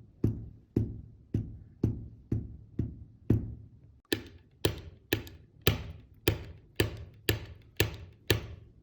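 Walking cane tip striking the floor, about two taps a second. About four seconds in the taps turn sharper and brighter, the high-pitched 'kan kan kan' clank of a cane whose anti-vibration fixing screw is loose or missing.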